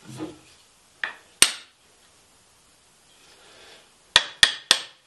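A small hammer tapping a wooden hand plane to adjust its blade. There is a soft knock at the start, two sharp taps about a second in, and three quick taps near the end.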